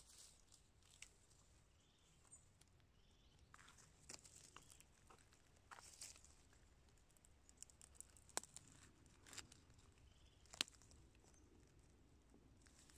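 Faint rustling and crackling of dry pine needles, leaf litter and soil being dug through by gloved hands and a knife, with scattered small clicks and a couple of sharper snaps in the second half.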